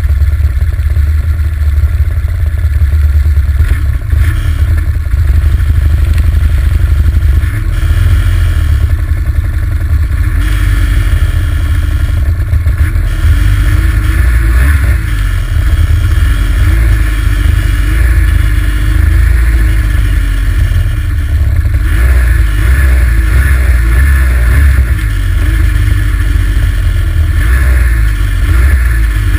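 Arctic Cat ZR 800 snowmobile's two-stroke engine running under way, its pitch wavering up and down with the throttle over a steady low rumble.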